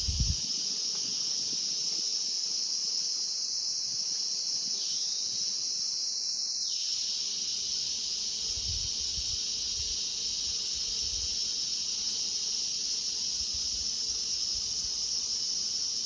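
Steady, high-pitched chorus of insects, with a fainter, lower tone that joins it about two seconds in and stops about seven seconds in.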